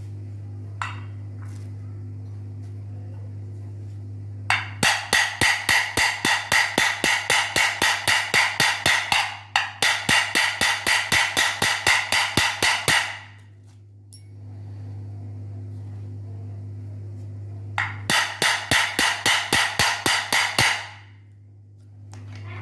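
A hammer tapping rapidly and repeatedly on metal, about four light ringing blows a second, to seat the new ball bearing and core of a ceiling fan. There is one long run of taps and, after a pause, a shorter one. A steady low hum runs underneath.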